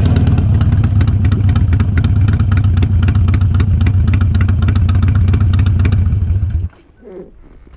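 Harley-Davidson Sportster Iron 883's air-cooled V-twin engine idling, with a steady loping pulse of about eight firing beats a second. It stops abruptly near the end.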